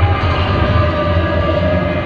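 Music with long held notes over a steady low rumble.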